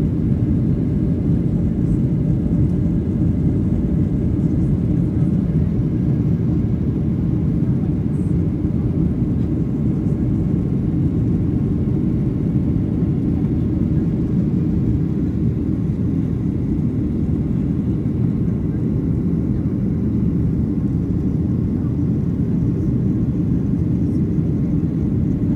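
Jet airliner cabin noise heard from a window seat in flight: the steady, low noise of the engines and rushing air, unchanging in level.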